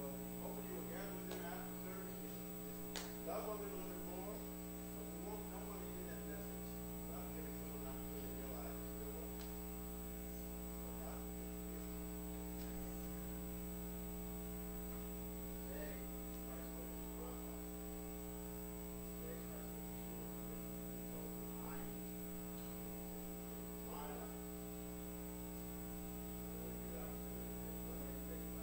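Steady electrical mains hum with its stack of overtones, with faint music under it.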